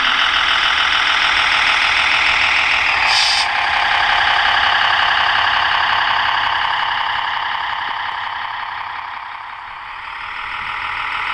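Servonaut SM3 sound module in an RC Unimog 406 crawler playing a simulated diesel truck engine through its small speaker as the truck crawls. It runs steadily, with a brief hiss about three seconds in, and fades down near the end before swelling again.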